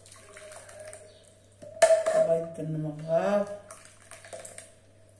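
Thick soup poured from a metal ladle into a ceramic bowl, with light clinks of the ladle against the bowl. A voice, drawn-out like chanting or singing, is heard in the background for a couple of seconds in the middle.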